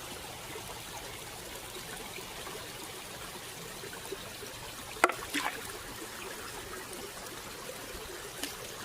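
Water trickling steadily over rocks in a small stream. About five seconds in there is one sharp click, with a few fainter knocks just after.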